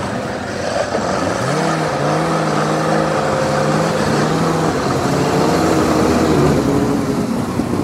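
Sherp amphibious ATV's diesel engine running as the vehicle drives up, its pitch rising about a second and a half in and then holding steady, growing louder as it approaches.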